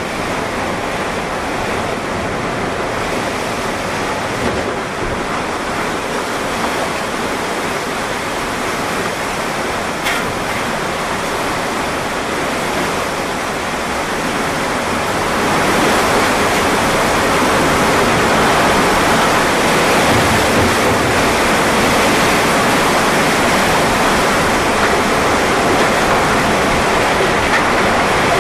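Tornado winds and heavy rain, a dense, steady rushing noise that grows louder about halfway through as the tornado hits.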